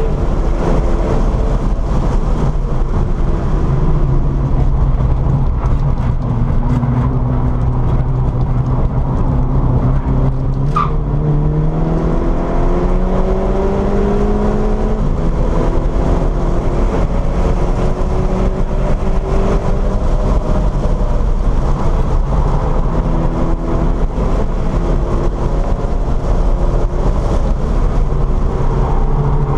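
VW Scirocco engine heard from inside the cabin while the car is driven hard. Its note climbs under acceleration and steps up and down with gear changes, about ten and a half seconds in most clearly, over constant road and wind noise.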